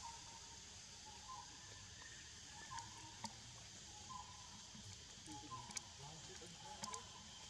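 Quiet forest ambience: a steady high insect drone, with a short call repeating about every second and a half and a few faint clicks.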